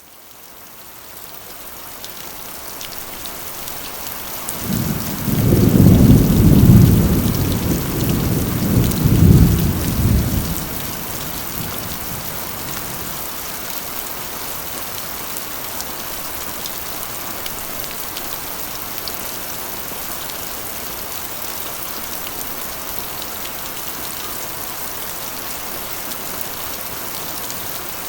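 Steady rain drumming on a corrugated iron roof, fading in at the start. About five seconds in, a roll of thunder rumbles low and loud for about six seconds, then dies away under the rain.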